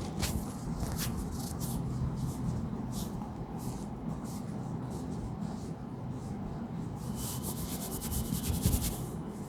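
Hands and clothing rubbing and rustling during manual spinal decompression, with scattered short scratchy strokes over a steady low hum and a quick run of rapid raspy rubs about seven seconds in.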